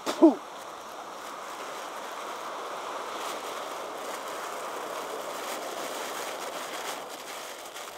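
Steady wash of surf breaking on a beach, swelling gently and easing off near the end, with a brief pitched cry right at the start.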